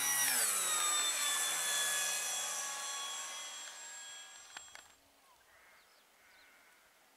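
Radio-control model airplane flying low past, its motor and propeller whine dropping in pitch as it goes by and then fading away. The sound cuts off suddenly about five seconds in.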